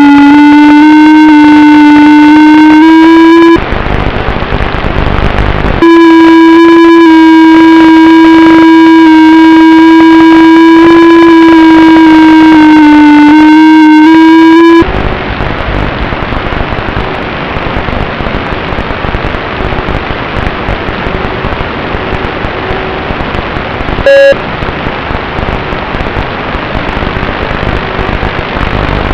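Electric motor and propeller of an FPV aircraft running as a loud, steady buzzing whine that wavers slightly in pitch, broken once by a couple of seconds of rough hiss. About halfway through the whine stops and only a rough, crackling hiss remains, with one short beep-like blip near the end.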